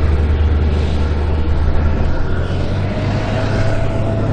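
M8 High-Speed Tractor's Continental AOS-895 six-cylinder air-cooled petrol engine running steadily as the tracked vehicle drives, its note rising slightly past halfway. A steady whine joins about three seconds in.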